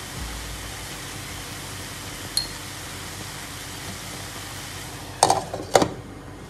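Glass pot lid put onto a pan of cooking banana blossom strips, clinking sharply twice against the rim about five seconds in, over a steady hiss from the pan. A single light tick comes about two seconds in.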